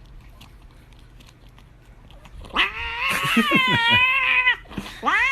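Cat yowling: a long, wavering drawn-out call starting about two and a half seconds in, then a shorter meow that rises and falls near the end.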